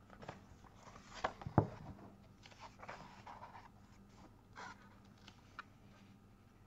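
Paper pages of a paperback book being turned and handled, rustling in several short sweeps, with one sharper tap about a second and a half in.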